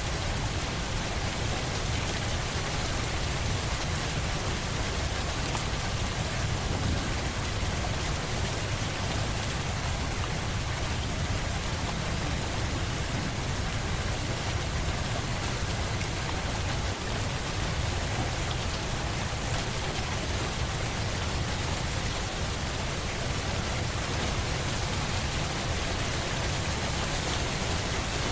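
Steady rain falling, an even, dense hiss of drops that keeps up without a break.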